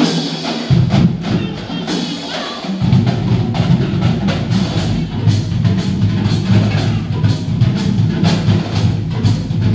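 Marching band playing a steady drum cadence: evenly spaced sharp stick clicks over a deep bass line that comes in about a second in and grows fuller near three seconds.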